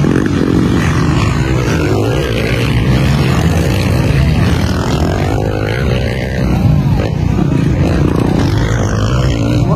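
Several motocross dirt bikes racing, their engines revving up and down and overlapping one another.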